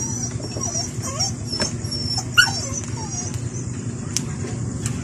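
A dog whimpering and yipping in short cries that rise and fall in pitch. A few sharp snaps come from yardlong beans being broken by hand.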